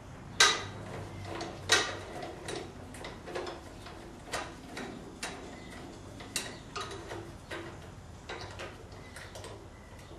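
Irregular metal clicks and clinks from hand tools and metal parts while an Allis-Chalmers 310 garden tractor's throttle and cable are being removed. Two louder knocks come about half a second and just under two seconds in, followed by lighter clicks every half second or so.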